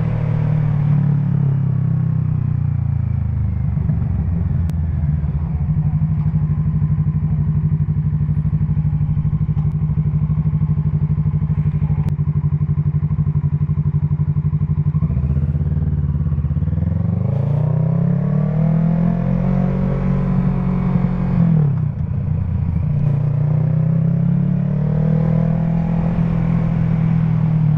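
Motorcycle engine under way, heard from the rider's helmet microphone: it holds steady revs for a long stretch, then the revs climb and hold, drop off sharply about two-thirds of the way through, and climb again.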